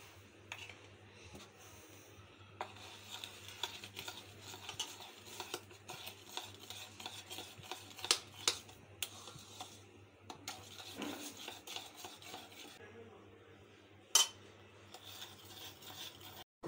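Metal spoon stirring flour into cake batter, scraping and clicking irregularly against the side of the mixing bowl.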